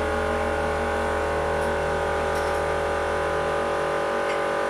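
Hydraulic press pump running with a steady hum of several even tones, with a couple of faint ticks.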